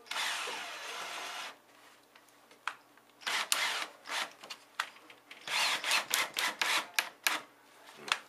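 A power drill runs for about a second and a half, driving a screw into wood, followed by short scraping and knocking sounds of handling tools and wood.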